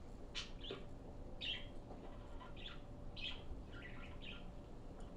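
A small bird chirping: about seven short, high chirps, spaced irregularly.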